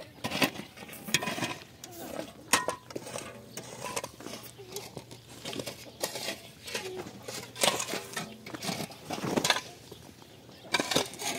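A steel shovel chopping and scraping into dry, stony ground: irregular strikes, roughly one every second or so.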